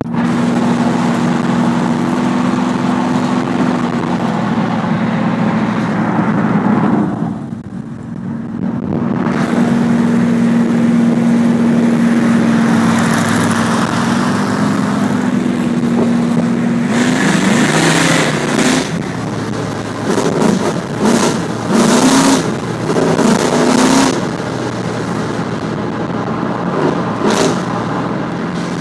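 Pontiac Trans Am's V8 running at cruising speed, a steady engine drone with road and wind noise heard from inside the car. The drone eases off briefly about eight seconds in, then picks up again, and several short bursts of louder noise come in the latter half.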